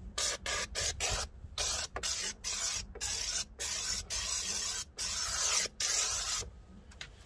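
Karcher SC2 steam cleaner jetting steam from its detail nozzle, a loud hiss coming in a quick run of short bursts with brief breaks, stopping about six and a half seconds in.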